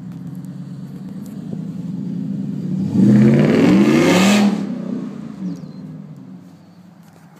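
Ford F-150 pickup's engine revving as the truck accelerates past. The pitch rises and it is loudest about three to four and a half seconds in, then it fades as the truck drives away.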